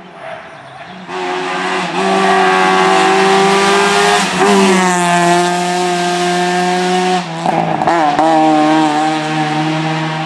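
Opel Astra rally car passing at speed, its engine running hard at high revs. The revs break and drop about four and a half seconds in, then dip and recover again near the end.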